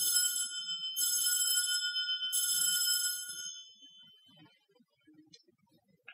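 Altar bells rung three times, about a second apart, each ring a cluster of high bell tones that hangs on and dies away. The ringing marks the elevation of the host just after the words of consecration over the bread.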